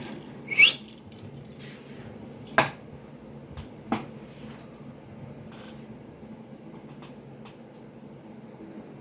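Hard plastic toy figures being handled and set down: a few short clicks and knocks, the loudest about half a second in with a brief rising squeak, and two more around two and a half and four seconds in.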